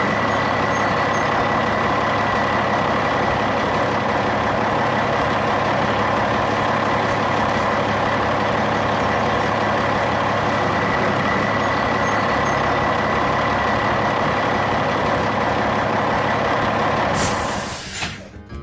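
Heavy truck engine running steadily, a deep drone with a steady high tone over it, fading out about a second before the end.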